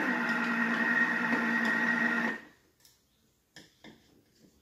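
Thermomix motor running on the dough-kneading setting, a steady whine under a heavy load of bread dough. It stops about two and a half seconds in, the pause of the knead mode's on-off cycle, and a few light knocks fall in the gap.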